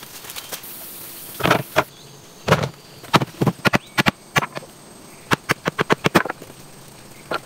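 Machete chopping green bamboo: a quick run of sharp knocks, several a second, after two heavier knocks about one and a half and two and a half seconds in.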